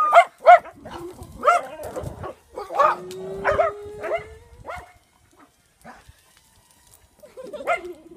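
Dogs, a wire-haired dog and a black Labrador, barking at a small drone. Clusters of short, sharp barks run for about five seconds, then a pause of a couple of seconds, then a few more barks near the end.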